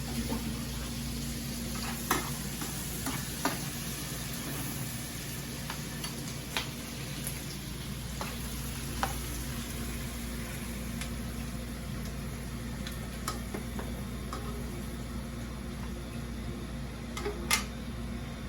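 Food sizzling in a hot sauté pan, a steady hiss with scattered light clicks of utensils and a couple of sharper clinks near the end.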